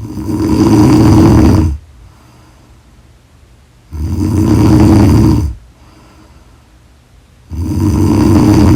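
A woman snoring loudly in sleep: three long snores about every three and a half to four seconds, with quiet breaths between.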